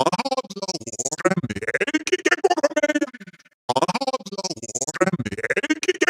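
Synthesized robotic voice stuttering, its vocal sounds chopped into rapid fragments. The phrase fades out about three and a half seconds in, and after a brief gap the same stuttering phrase starts again.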